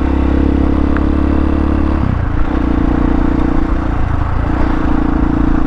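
Hawk 250 dual-sport motorcycle's single-cylinder four-stroke engine running steadily while riding, with its note changing about two seconds in. An even hiss of tyres on loose gravel and wind runs underneath.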